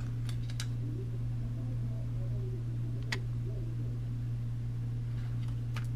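A steady low hum, with a few light clicks as small parts and electronics for a micro RC car are handled.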